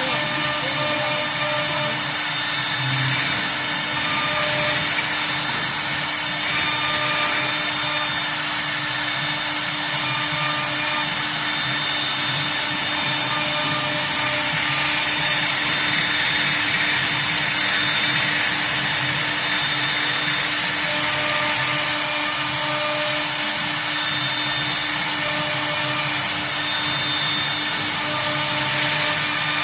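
CNC router with an HSD electrospindle running steadily, a constant motor whine with higher tones that come and go every few seconds.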